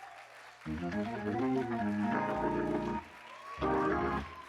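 Organ playing sustained chords with moving notes: a long chord about a second in, then a shorter chord near the end.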